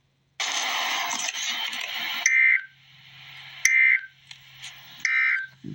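A loud burst of hiss, then the Emergency Alert System's end-of-message data tones: three short, buzzy warbling bursts about a second and a half apart, with a low hum between them. They mark the end of the alert.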